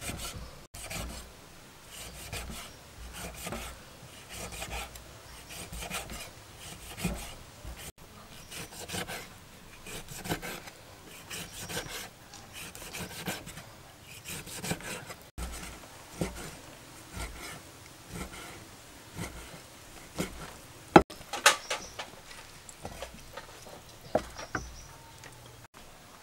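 Cleaver slicing through raw pork belly on a wooden chopping board: repeated short cutting strokes, each ending with the blade knocking on the wood, with a few louder knocks near the end.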